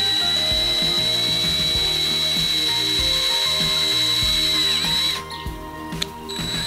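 Cordless drill boring a small hole through the boat's fiberglass hull, running at a steady high whine that stops about five seconds in.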